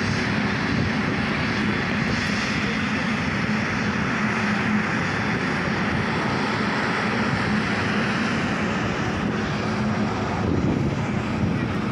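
Boeing 777's twin turbofan jet engines running as the airliner taxis past: a steady, even jet roar with a low hum underneath.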